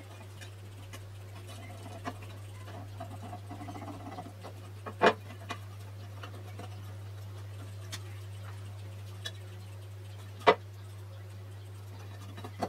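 A small screwdriver quietly scratches and picks old sealant out of the grooves of an aluminium camshaft oil seal retainer, with a few light ticks. Two sharp knocks, about five and ten and a half seconds in, stand out over a steady low hum.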